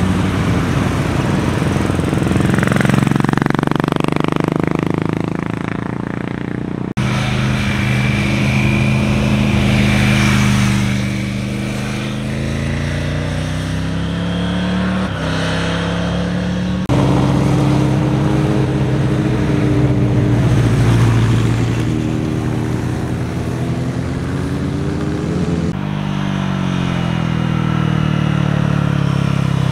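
Motorcycle engines running as the bikes ride through a hairpin bend one after another, the engine pitch rising and falling as they slow and pull away. The sound changes abruptly a few times as a different bike takes over.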